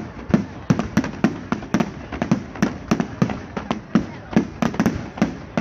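A fireworks display going off in quick succession: a rapid, irregular string of sharp bangs, about three to four a second.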